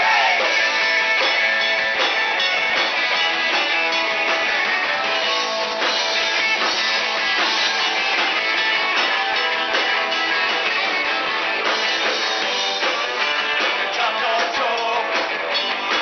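Live rock band playing: electric guitars and a drum kit, with a singer at a microphone. The recording is thin, with little bass.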